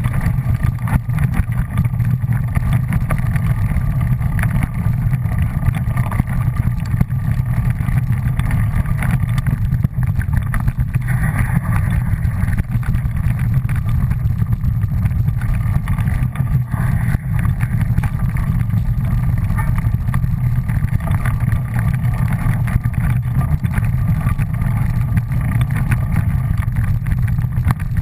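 Steady low rumble of a fast ride along a leaf-covered dirt trail, picked up by a camera mounted on the moving rider or machine. It is loud and continuous and barely changes.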